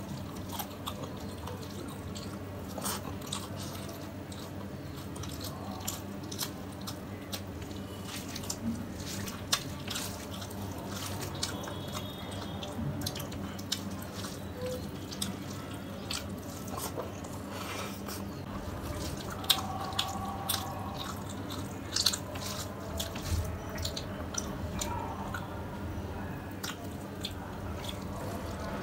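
Fingers squishing and mixing curry-soaked rice on a plate: many small, irregular wet clicks and squelches, over a faint steady low hum.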